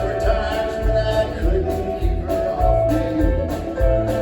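Live rock band playing a song: drums keep a steady beat under a bass line, with a voice singing in places.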